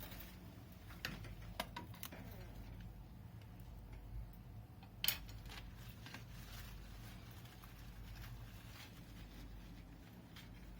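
Lettuce being handled and pulled from a hydroponic system: faint rustling with a few sharp clicks, the loudest about five seconds in, over a low steady hum.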